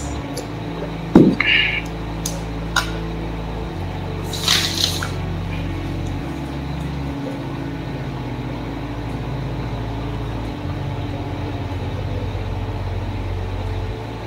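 Steady low hum of room noise on an open desk microphone, with a few clicks and knocks in the first three seconds (the loudest about a second in) and a short hiss around four and a half seconds.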